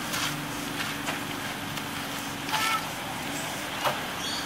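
Capybaras and a mara chewing and tearing bamboo and leafy branches, with a few short crunching snaps, over a steady low hum. A short call sounds about halfway through.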